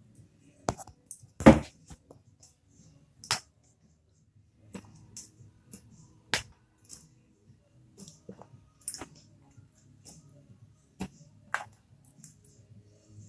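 Irregular sharp clicks and crackles of a Mashems toy pack being handled and opened, the loudest about a second and a half in.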